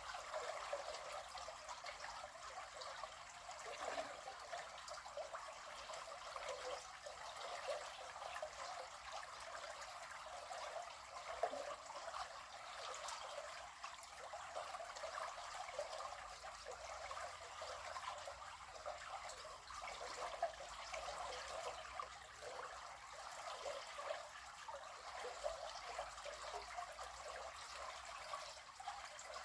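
River water trickling over stones, a steady flickering rush with little low end.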